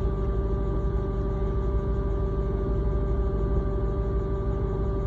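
Loud, steady buzzing hum from under the rear seats of a Lexus GS F while the car sits parked, a fixed tone with higher overtones over a low rumble. It is the car's ongoing fault, louder when parked than when driving.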